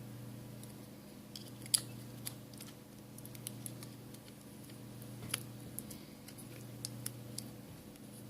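Scattered light clicks and taps from handling a smartphone and small repair tools, the sharpest about two seconds in and again past the middle, over a steady low electrical hum.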